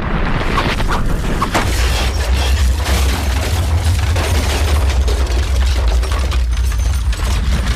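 Underwater volcanic eruption: a deep, continuous rumble with a dense crackle of sharp bangs and cracks over it.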